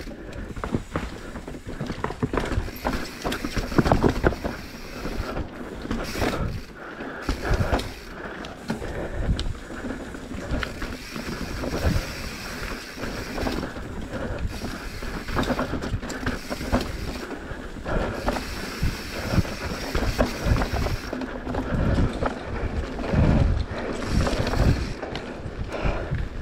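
Mountain bike ridden along a rocky singletrack trail: tyres rolling over dirt and stones and the bike rattling and knocking over bumps in an uneven clatter.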